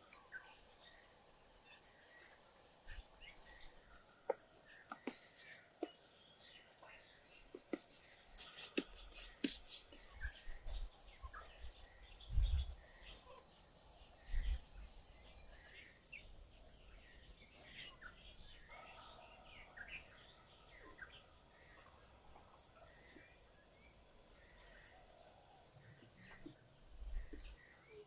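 Insects calling steadily in one constant high-pitched trill, with a second, higher pulsing insect call that comes and goes. Scattered light clicks and knocks sound throughout, and two dull thumps about halfway through are the loudest events.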